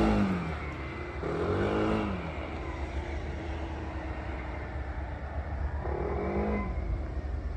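Motor vehicle engines on a street: a loud engine fades away at the start, then an engine's pitch briefly rises and falls twice, about a second in and near the end, over a steady low rumble.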